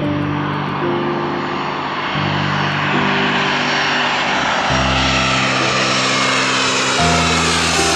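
Airbus A320-200 jet airliner on low final approach, its engine roar growing steadily louder as it nears overhead, with a faint whine gliding in pitch. Slow background music chords, changing every two seconds or so, sound underneath.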